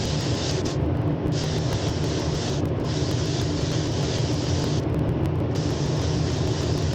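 Paint spray gun hissing in passes of one to two seconds, with short breaks between trigger pulls, over a steady low drone.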